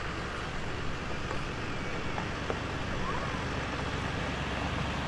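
Steady low rumbling background noise with a hiss, and a few faint short high chirps.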